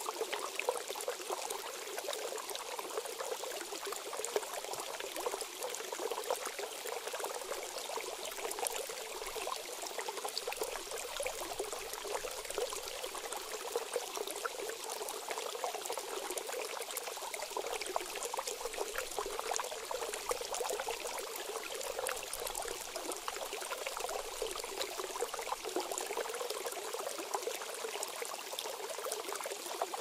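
Small shallow creek trickling steadily, a constant wash of flowing water dotted with many fine drips and ticks.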